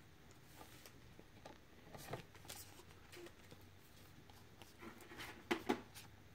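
Faint soft ticks and rustles of a stack of baseball trading cards being slid and fanned through by hand, with two slightly louder flicks near the end.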